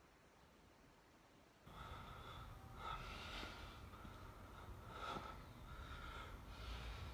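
A man breathing hard during qigong movements: a series of short, forceful breaths through the nose. They are faint and begin after about a second and a half of near silence.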